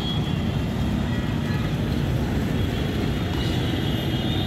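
Busy city street traffic: motorcycles, auto-rickshaws and cars going by, heard as a steady low rumble.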